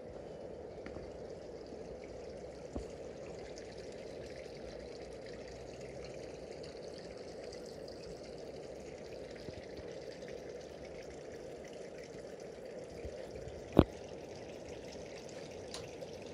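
Water trickling steadily into a garden koi pond from its water feature, with one sharp knock near the end.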